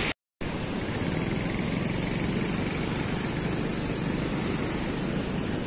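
A moment of silence, then a steady rush of floodwater pouring out through the opened gates of a river barrage.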